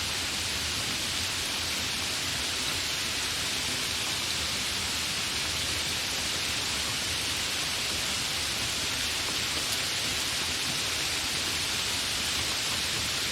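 Continuous steady rain, an even hiss with no separate drops or breaks.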